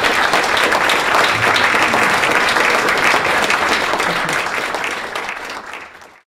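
Audience applauding, a dense steady clapping that fades near the end and then cuts off.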